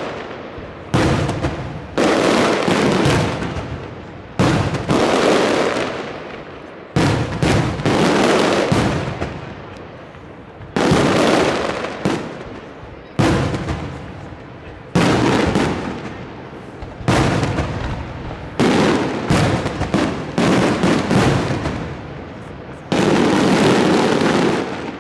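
Aerial firework shells of a castillo display bursting one after another, roughly one every one to two seconds, each sharp bang dying away over a second or so before the next.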